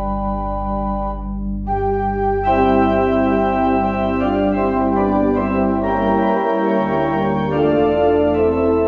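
Organ playing a slow prelude of sustained chords over a held bass note, the chords changing every second or so.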